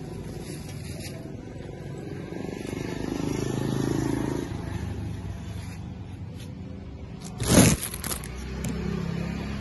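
Street traffic, with a small motorbike passing about three to four seconds in, its engine growing louder and then fading. Near the end comes a brief loud handling noise as the camera is covered.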